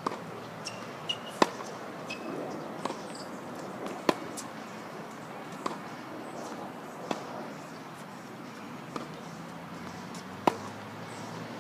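A tennis rally on a hard court: tennis balls struck by rackets and bouncing on the court, making a series of sharp pops one to three seconds apart. The loudest come about a second and a half, four, and ten and a half seconds in.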